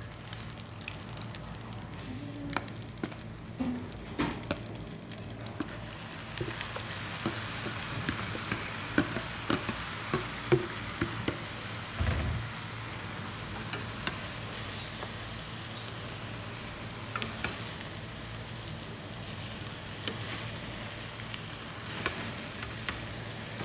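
Noodles and vegetables sizzling in a nonstick wok while wooden spatulas stir them, with many short scrapes and taps against the pan. The sizzle grows fuller about six seconds in, and there is a dull thump about halfway.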